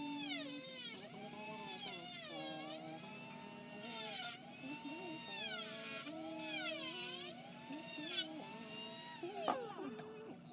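Dremel rotary tool cutting a plastic blaster shell: its high whine drops in pitch each time the bit bites into the plastic and climbs back as it is eased off, about five passes.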